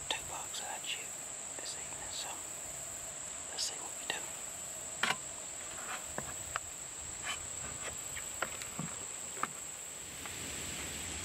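Steady, high-pitched insect chorus, with scattered small clicks and taps. Near the end a soft, even rustle of wind and leaves joins it.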